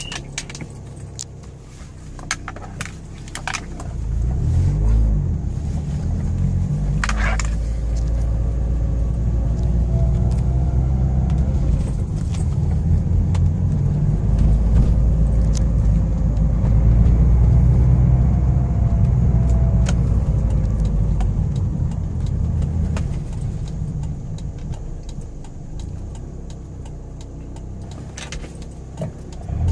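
A 2011 Mazda MX-5 Miata (NC) running on the move, its four-cylinder engine and the road rumble heard from inside the car. The rumble builds a few seconds in, holds strong, then eases off near the end, with scattered small clicks and rattles.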